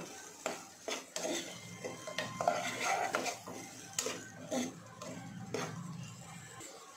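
A metal spoon stirring chopped onions and green chillies in a non-stick pot, with irregular clinks and scrapes against the pot.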